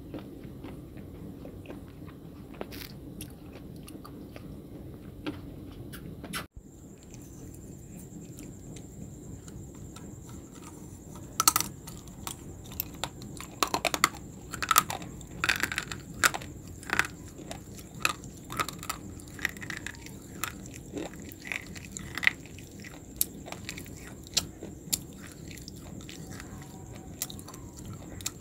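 Close-up crunching as a person bites and chews hard white sticks. There are a few scattered crisp snaps at first, then a steady run of sharp cracking bites from about a third of the way in.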